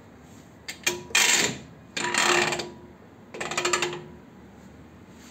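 A gloved hand working the metal housing of an old Soviet submarine's bow hydroplane angle indicator: three short bursts of metallic scraping and clicking, about a second apart.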